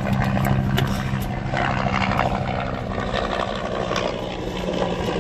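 Car engine idling with a steady low hum, heard from inside the car with the window down, with a few light clicks over it.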